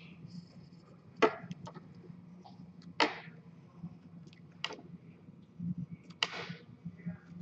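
Pencil strokes scratching across a sheet of paper as drawing lines are gone over more firmly: about four separate short strokes, roughly one every second and a half, the last one a little longer.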